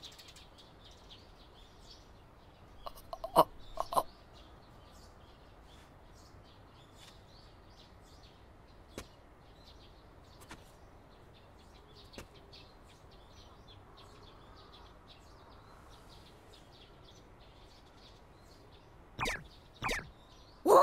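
Faint bird chirps over a quiet background. A cluster of sharp knocks comes about three to four seconds in, and two louder short sounds come near the end.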